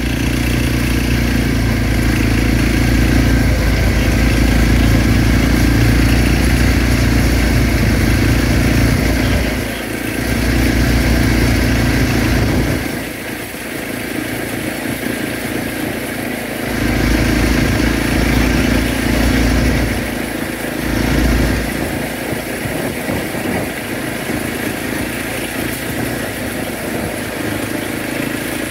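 Quad bike (ATV) engine running at steady riding speed on a paved lane, with a hum and rushing noise that ease off several times, most clearly for a few seconds around the middle, then pick up again.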